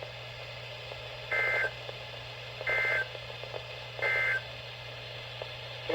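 NOAA Weather Radio SAME End-of-Message data bursts: three short, identical two-tone warbling digital bursts about 1.3 s apart. They mark the end of the severe thunderstorm warning message. A steady low hum runs underneath.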